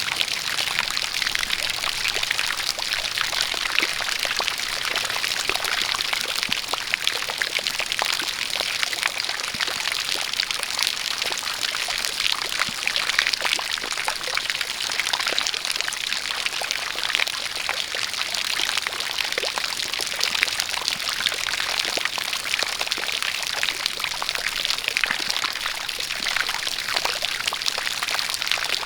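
A spout of water pouring steadily, with rain falling: an even hiss with many small drop splashes throughout.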